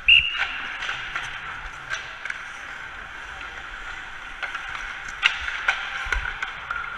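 Ice hockey practice on rink ice: skate blades scraping and sticks clicking against pucks and ice in scattered sharp knocks, over a steady rink hum. A short high-pitched squeal at the very start is the loudest sound.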